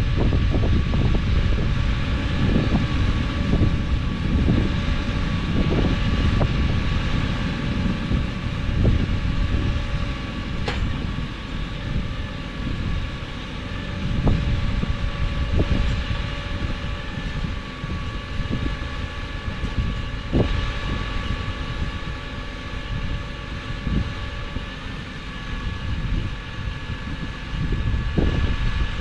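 Tractor engine running steadily, a low rumble with a faint constant whine over it, and a few sharp knocks and clunks.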